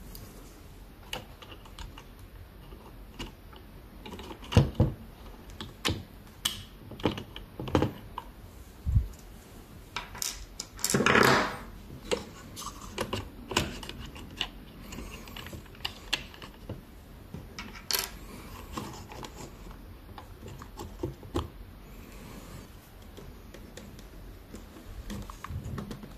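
Irregular small clicks, taps and knocks of hand tools and small parts being handled at a workbench, with one brief scraping burst about eleven seconds in.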